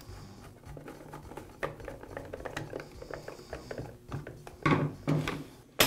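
Light clicks and knocks of hard plastic chainsaw housing parts being fitted and handled on a workbench, with a few louder knocks near the end.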